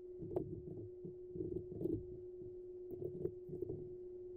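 Faint, scattered computer keyboard clicks as text is typed into form fields, over a steady low electrical hum.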